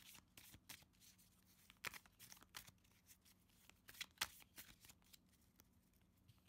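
A small deck of Lenormand cards shuffled by hand: faint, irregular card slaps and rustles that thin out near the end.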